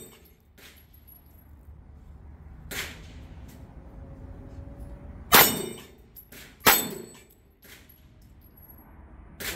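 Gunshots from a 9 mm firearm, three loud ones about 3, 5.5 and 7 seconds in, with a few fainter cracks between. Hits on a steel dueling-tree target clang and ring as its plates swing over.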